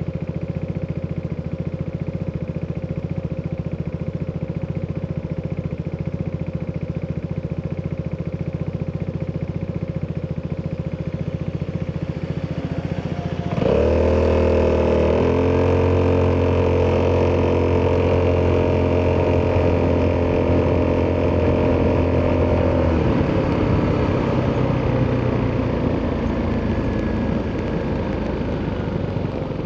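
Italjet Dragster 200 scooter's single-cylinder four-stroke engine through an Akrapovic exhaust, running steadily at low revs. About halfway through the throttle opens and the revs jump and hold at one steady pitch while it pulls away. Near the end the throttle closes and the note falls away as it coasts.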